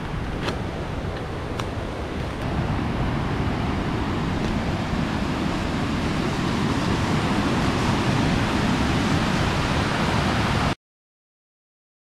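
Steady roar of rushing water from a waterfall and stream, growing a little louder a few seconds in and cutting off suddenly near the end.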